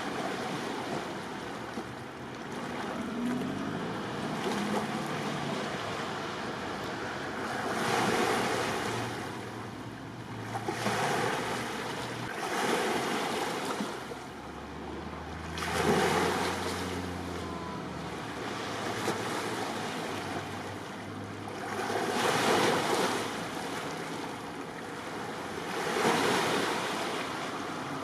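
Sea waves washing in against the harbour shore, swelling and ebbing every few seconds, with wind buffeting the microphone. A faint low hum runs briefly in the middle.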